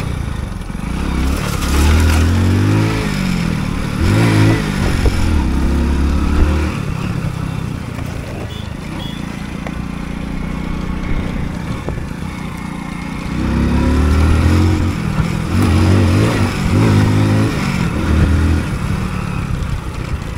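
Hero Splendor motorcycle's single-cylinder four-stroke engine revving up and easing off in quick surges as it is ridden over rough ground. It comes in two spells of several seconds, with lower, steadier running between them.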